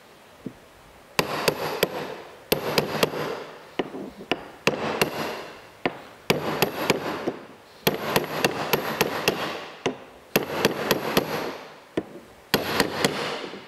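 Hammer taps driving an oil seal into its press-fit bore in a cast-iron idler-pulley tensioner arm: short groups of quick, ringing metal taps, repeated every second and a half or so.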